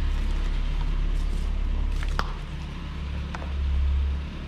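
Low, steady rumble of the Skoda's engine running, heard from inside the car, swelling briefly near the end. Two short sharp clicks sound about two and three and a half seconds in.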